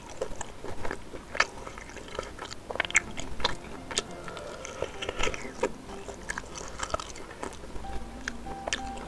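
Close-up mouth sounds of biting and chewing sempol, fried chicken skewers coated in spicy sauce: irregular wet smacks and soft clicks.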